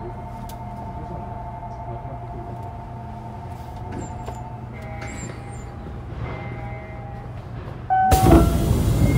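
Osaka Monorail 2000 series train running: a steady low hum with faint steady whining tones, then a sudden loud rushing noise about eight seconds in.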